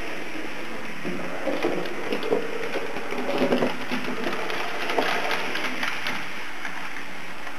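HO-scale model train, a small steam tank-locomotive model hauling covered goods wagons, running along the track: its motor and gears whir while the metal wheels click and rattle over the rails. The clicking is busiest in the middle of the stretch.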